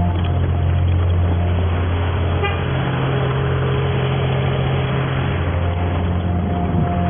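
Steady low engine drone of a running vehicle, a constant hum with a slight shift in pitch partway through.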